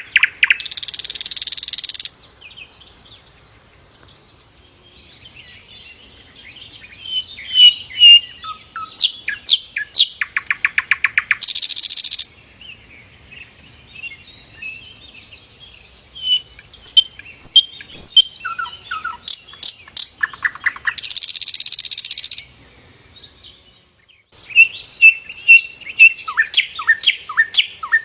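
Sikatan londo flycatcher singing: a rapid, varied song of chattering notes and short whistles, broken three times by a harsh rasping note about a second and a half long, with a fast buzzing trill near the middle.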